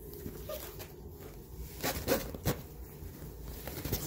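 Close handling noise of a puppy being held against a person: soft rustling, with a few short clicks about halfway through.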